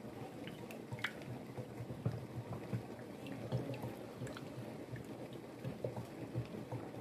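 A wooden spatula stirring thick ogi (pap) in a metal saucepan: irregular wet squelches, with a few light clicks where the spatula touches the pot.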